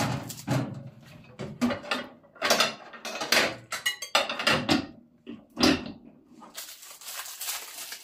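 Knocks and clatter of a microwave oven's wire grill rack and inner fittings being handled and set down, followed near the end by a rustle of paper packing.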